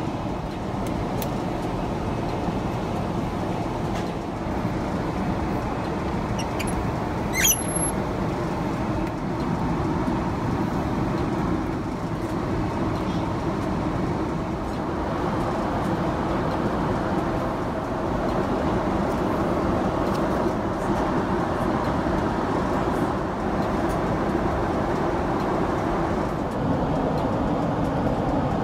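Steady cabin noise inside a Boeing 777-300ER airliner, with a brief sharp sound about seven seconds in.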